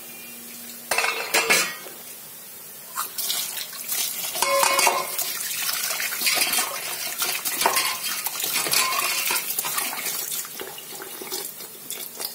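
Bitter gourds being rinsed by hand in a stainless steel bowl of water: splashing and sloshing, with the steel bowl clanking and ringing. A couple of sharp metal knocks come about a second in, and the splashing runs thickest through the middle.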